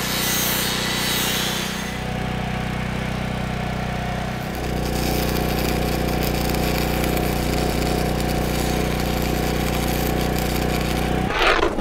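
Steady mechanical drone of metal-fabrication equipment, with the hiss of an angle grinder cutting galvanized steel tube over the first two seconds; the drone shifts slightly about four and a half seconds in.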